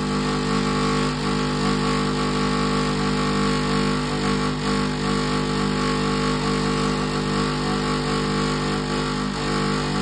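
IFB Diva Aqua MXS 7010 front-load washing machine running with a load in the drum. It makes a steady mechanical hum of several held tones over a rumble, which the owner calls terribly loud. He puts the noise down to its conventional, non-inverter motor.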